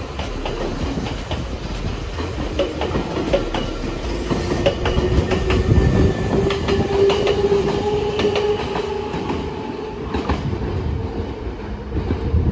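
Nankai 8300 series electric train moving along the station track, its wheels clattering over rail joints. A steady whine rises above the rumble from about five to nine seconds in.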